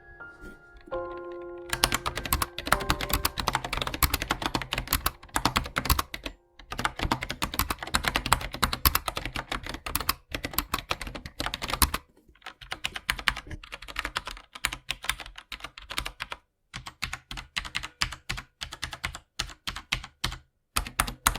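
Fast typing on a mechanical keyboard fitted with metal letter keycaps: rapid key clicks in long runs with brief pauses, starting about two seconds in.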